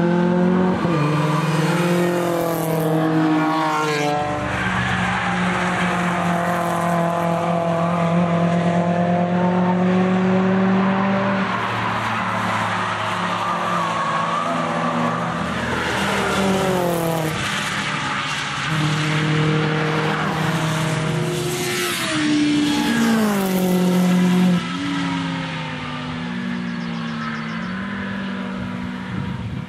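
A tuned Mini Cooper S and other cars driving hard past on a race circuit, loud throughout. The engine note holds, then falls and climbs again several times through gear changes and acceleration out of corners.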